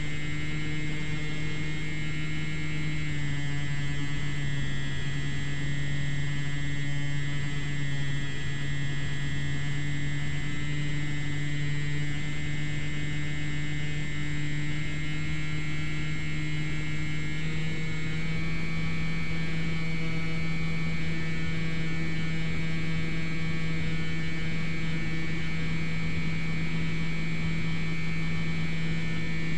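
Electric motor and propeller of a Slowstick RC plane, heard from on board: a steady hum that steps slightly lower in pitch about three seconds in and back up a little past halfway, following changes of throttle.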